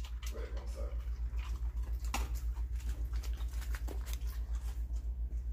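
A dog eating dry food from an automatic pet feeder's tray, with scattered sharp crunches and clicks, over a steady low hum that pulses about five times a second.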